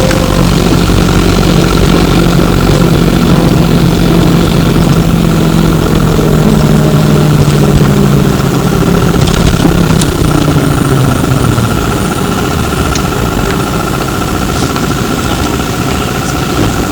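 Inside a Flyer E902 electric trolleybus on the move: the electric drive's steady hum and whine. A lower motor tone slides down in pitch and fades out after about ten seconds, with the overall sound dropping slightly.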